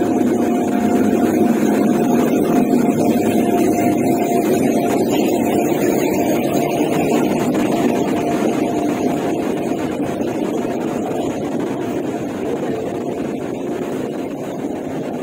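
Express train hauled by an electric locomotive pulling into the platform, the rumble of its wheels and coaches rolling close past, with a steady tone over the rumble through the first half. The sound eases slowly as the train slows.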